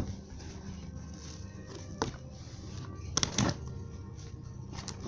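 Faint background music, with a sharp click about two seconds in and a short cluster of knocks a little past three seconds.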